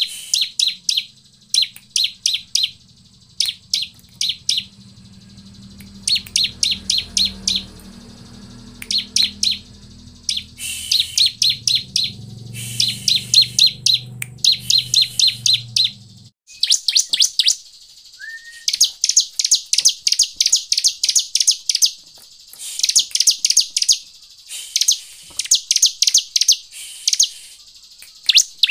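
Bar-winged prinia (ciblek) calling in repeated bursts of rapid, sharp, high chip notes, each burst about a second long, the bursts growing longer and denser in the second half. A low steady hum sits underneath for the first half and cuts off suddenly.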